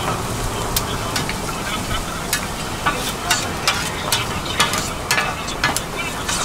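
Pork tripe and vegetables sizzling on a hot flat griddle, with metal spatulas clacking and scraping against the griddle as they toss the food. The strikes come irregularly and grow more frequent after the first two seconds.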